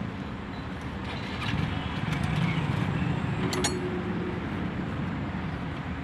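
A motor vehicle engine running steadily with a low rumble that swells a little in the middle. A few light metal clinks sound, and one sharp click comes about three and a half seconds in.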